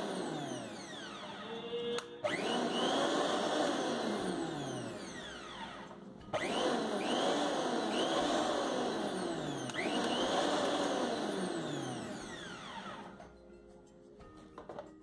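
Candes Maple mixer grinder's 550 W motor running in several bursts of a few seconds each, its whine rising and falling in pitch, with brief stops between bursts. It winds down and stops near the end.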